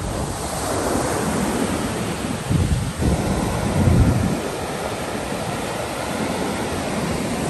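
Ocean surf breaking and washing up a sandy beach, with wind buffeting the microphone in low rumbling gusts, strongest about three to four seconds in.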